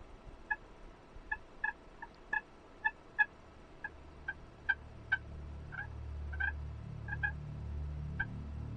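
Turkey clucks: about sixteen short, sharp notes at uneven intervals, half a second or so apart. A low rumble builds underneath from about four seconds in.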